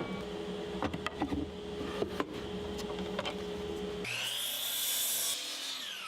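Power saw cutting treated pine 1x4 boards. A few wooden knocks come first, then about four seconds in the saw bites into the board with a loud hiss and a whine that rises and holds. The whine winds down near the end.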